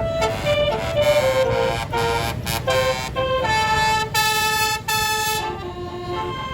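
Bus telolet horn, a multi-note air horn set, playing a quick melody of short stepped notes, then holding a chord for about a second and a half before dropping to lower notes, over a low rumble.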